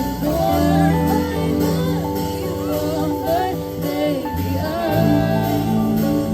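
A band playing a song with a lead singer: held bass and chord notes under a sung melody.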